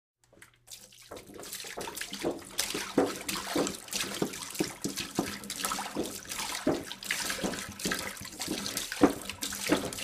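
Water pouring from a jug, a continuous splashing stream that starts about a second in and carries many small uneven splashes.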